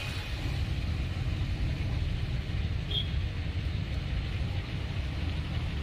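Steady low rumble of a bus engine and road noise, heard from inside the moving bus. A brief high chirp sounds about three seconds in.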